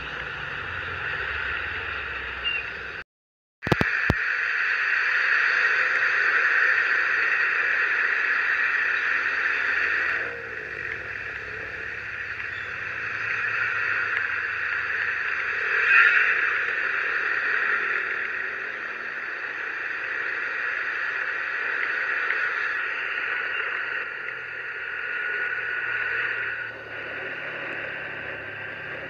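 Motor scooter riding on a rain-soaked road: a steady hiss of tyres on wet asphalt and water spray, mixed with wind on the microphone, with a brief louder swell about sixteen seconds in. The sound cuts out completely for about half a second around three seconds in and comes back with a click.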